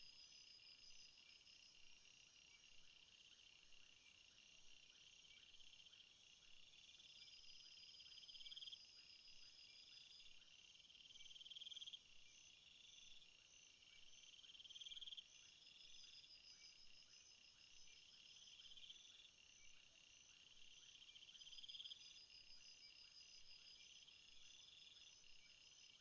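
Faint insects trilling in the background: several steady high trills overlap, with one song swelling and cutting off about every two seconds.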